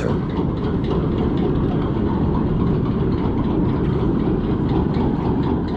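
Sandbanks chain ferry Bramble Bush Bay close by: a steady, heavy low rumble of its engines and chain drive, with faint ticks over it.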